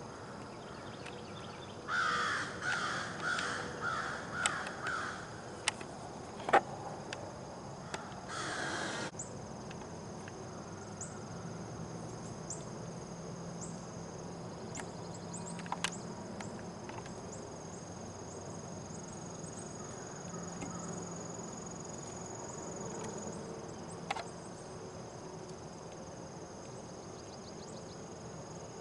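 Buck deer giving a snort-wheeze, the buck's aggressive challenge call: a quick run of about seven short nasal bursts through the nose, then a few seconds later one longer hissing wheeze. Insects trill steadily throughout.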